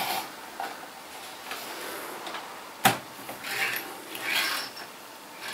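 Small handling sounds: one sharp click nearly three seconds in, then a few short rubbing, scraping sounds.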